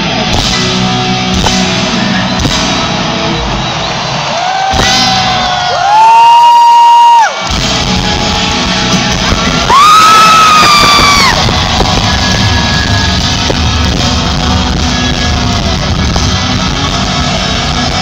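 Live rock band with piano playing, recorded from within the audience. Twice a voice close by lets out a long, high, held yell, once about five seconds in and again around ten seconds. Each yell is loud enough to hit full scale over the music.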